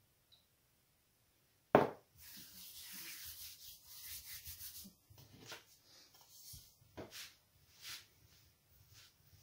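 A sharp knock about two seconds in, then hands rubbing and pressing floured pastry dough on a plastic pastry mat, a steady dry rubbing for a few seconds followed by shorter strokes as a rolling pin starts over the dough.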